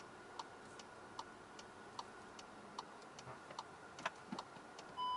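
Skoda Superb's turn-signal indicator ticking steadily inside the cabin, about two to three clicks a second, the cue that picks the parking side for the park assist. A short electronic beep sounds near the end.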